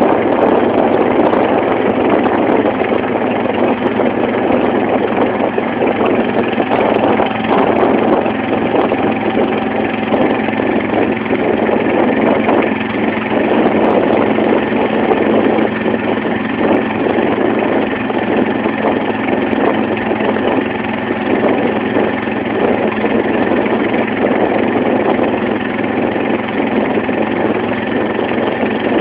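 Engine of a wooden banka motorboat running steadily while the boat is under way.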